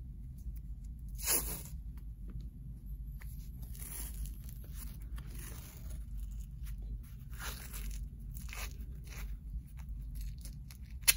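White athletic tape being pulled off the roll and torn by hand, in several short rasping bursts as strips are laid over a taped ankle, with a single sharp click near the end.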